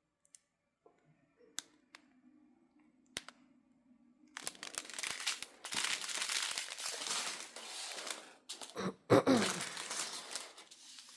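Small plastic packets of diamond-painting drills being handled: a few light clicks, then from about four seconds in a steady crinkling of plastic that runs on with a louder burst near the end.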